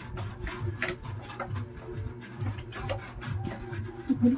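Cardboard box of a solar panel being handled and opened: cardboard rubbing and flaps scraping, with scattered clicks and taps over a steady low hum.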